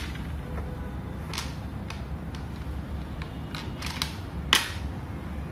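Go stones clicking as they are picked up and set down on the board and handled in a tub of stones: a scatter of short, sharp clicks, the loudest about four and a half seconds in.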